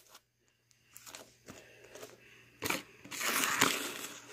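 Crunchy butter slime with mini foam beads being squeezed and worked by hand: faint crackling at first, then louder, dense crunching and crackling for the last second and a half.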